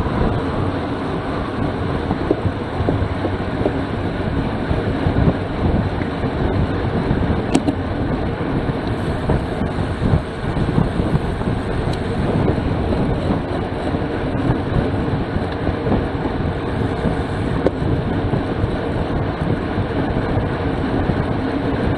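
Steady rush of wind and tyre-on-tarmac noise from a road bicycle racing at about 29 mph.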